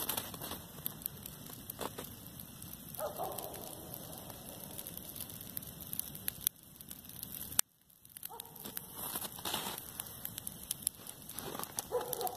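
Dry grass burning, the flames crackling with many small irregular pops. The sound drops out suddenly a little past the middle, then the crackling picks up again.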